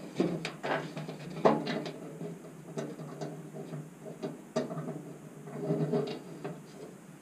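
Small metal throttle-cable fittings being handled and fitted by hand, making irregular light clicks and knocks, the sharpest about one and a half seconds in.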